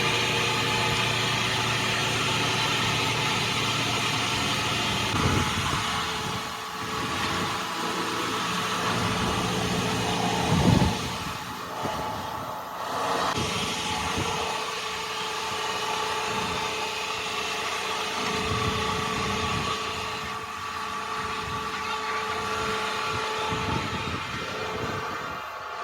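A heavy vehicle engine running steadily, with a brief louder knock about eleven seconds in.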